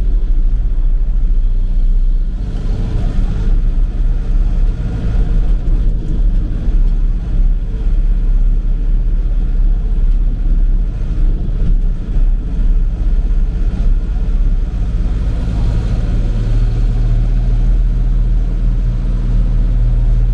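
Tractor engine running steadily under way, a low, even drone.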